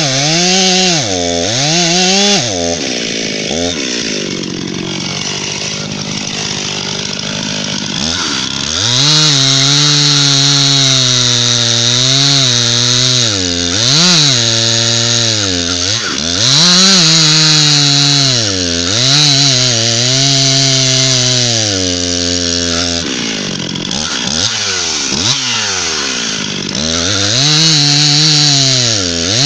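Stihl MS 261 two-stroke chainsaw making a felling cut in a poplar trunk, the chain cutting through the wood. The engine runs at a lower, steady speed for a few seconds near the start, then runs hard in the cut, its pitch repeatedly dipping under load and recovering.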